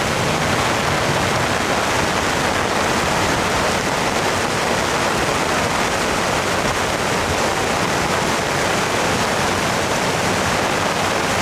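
Floodwater rushing in a swollen creek, a loud steady rush of water.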